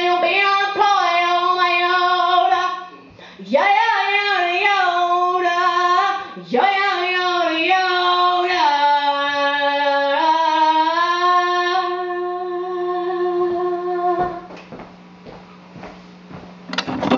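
A woman singing a cappella into a microphone, with long held notes. The voice stops about 14 seconds in, leaving a steady low hum and a sharp click near the end.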